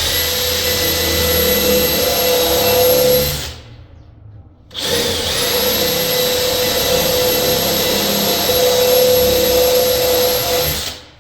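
Power drill with a 5/16-inch bit boring a mounting-screw hole through a wooden door, running with a steady whine. It stops for about a second some three and a half seconds in, then runs again until near the end.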